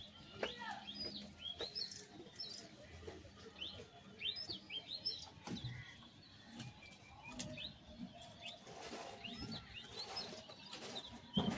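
Small birds chirping in short, quick, high calls scattered throughout, with a few light clicks.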